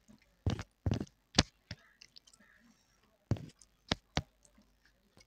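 Sharp clicks and knocks of dishes and utensils handled at a table as a meal of rice is readied: about six strokes in two clusters, three in the first second and a half and three more a couple of seconds later.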